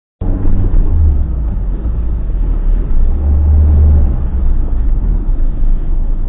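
In-cabin drone of a car driving on an expressway, picked up by a dashcam microphone: a steady engine and tyre rumble, heaviest in the bass.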